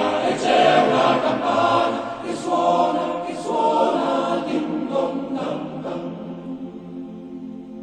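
A choir singing a slow song, fading out over the last few seconds.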